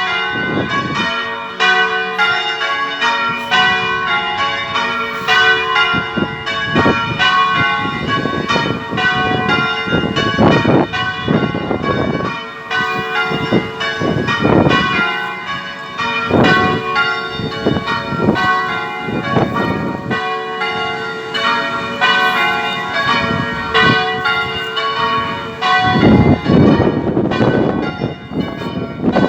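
Church tower bells rung by a band of ringers, stroke following stroke in a continuous run of overlapping rings.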